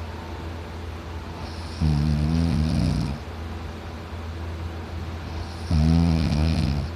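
Man snoring loudly: two long snores about four seconds apart, each a little over a second, with a low steady hum between them.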